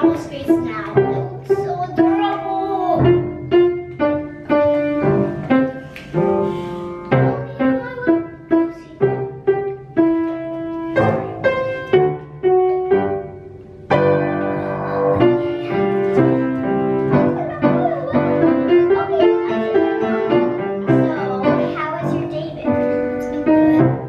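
Upright piano played by hand: a song of separate notes and chords, growing fuller about halfway through.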